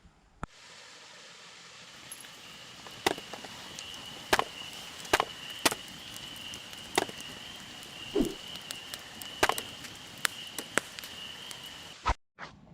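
Irregular sharp knocks, roughly one to two seconds apart, over a thin steady high-pitched drone.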